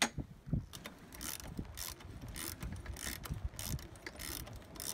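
A few light hammer taps on a boat's stainless steel gooseneck fitting, then a run of short rasping metal strokes, about two a second, as the gooseneck hardware is worked.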